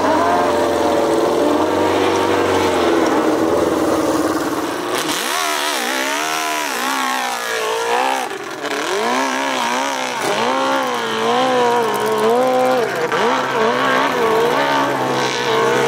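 Open-class (700cc and up) hillclimb motorcycle engine at high revs, fairly steady at first. From about five seconds in the revs rise and fall over and over.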